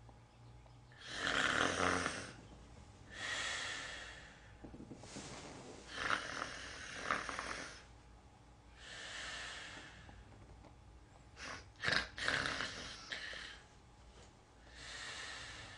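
A woman snoring in bed, about seven drawn-out snores a couple of seconds apart. It is feigned snoring: she is pretending to be asleep.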